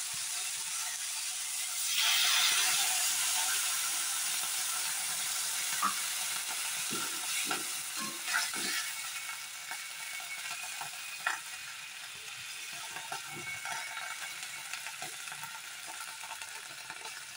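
Water poured into hot oil in an iron kadai of frying tomatoes: a loud burst of sizzling about two seconds in, which slowly dies down into a softer bubbling sizzle. A metal spatula knocks and scrapes against the pan now and then as the tomatoes are stirred.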